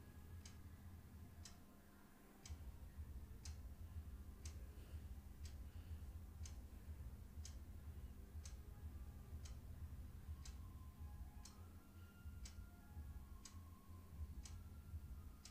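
Faint, evenly spaced ticking, about one tick a second, like a clock, over a low steady hum.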